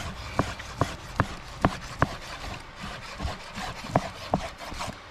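Knife chopping on a wooden cutting board: sharp, even knocks about two and a half a second for the first two seconds, then more scattered strokes.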